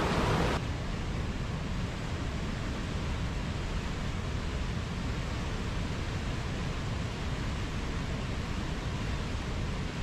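Steady rush of white water churning over rocks in river rapids. About half a second in, the sound changes abruptly to a slightly quieter, duller rush.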